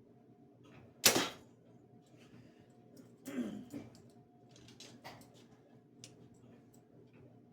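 A compound bow shot off a hinge release: one sharp, loud crack about a second in as the string is loosed. A softer, longer rustle and clatter follows about two seconds later, with faint light ticks between.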